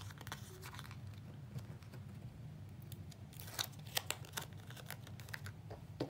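Cardstock pieces being handled and slid together on a tabletop: light paper rustles and scattered clicks, with a cluster of sharper taps a little past the middle, over a low steady hum.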